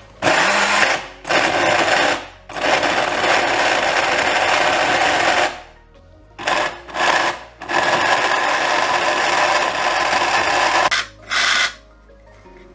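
Small electric blade grinder whirring in pulses as it grinds dry ingredients to crumbs: about seven runs, some short, the longest around three seconds, each switched on and off by hand.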